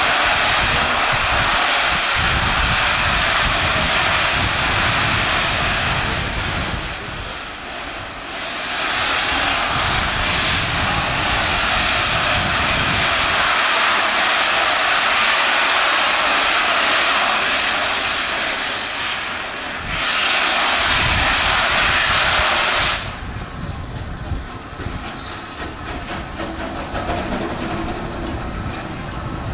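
Steam locomotive making a loud, steady hissing roar of steam. It changes abruptly twice, near the middle and about three-quarters through, then is quieter near the end.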